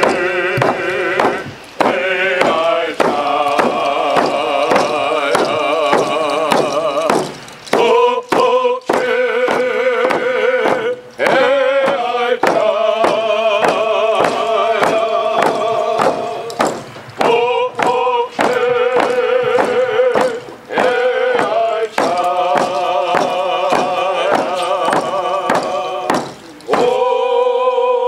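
Indigenous drum song: a group of men singing long, wavering notes over steady beats on hand-held frame drums. Near the end the drumming stops under one long held note.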